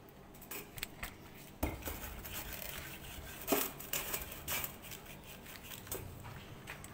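Hand vegetable peeler scraping the skin off a taro root in short, irregular strokes, with a few louder scrapes.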